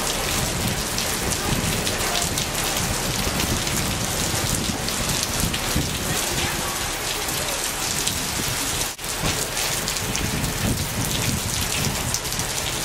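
Heavy rain pouring down onto wet pavement, a steady loud hiss of the downpour. It briefly drops out about nine seconds in.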